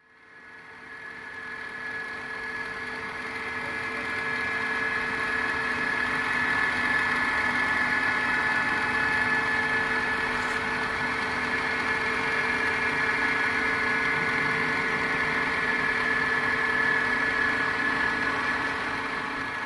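Lagun FCM 152 milling machine running, a steady mechanical whine of several constant tones over a hum. It grows louder over the first few seconds, then holds even.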